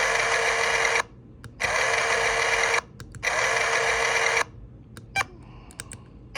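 Game sound effect from the Darkish Tower's small speaker: three bursts of hissing noise about a second each, with short gaps between them. A faint click comes near the end.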